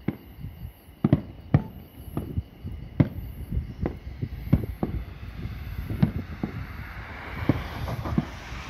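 Aerial fireworks bursting: a quick, irregular series of bangs and cracks, some louder than others.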